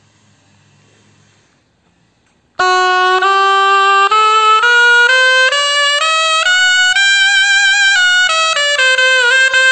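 Seven-hole ciaramella, a double-reed shawm, starting to play about two and a half seconds in: loud, one note at a time, stepping up a scale and then back down to demonstrate its fingering.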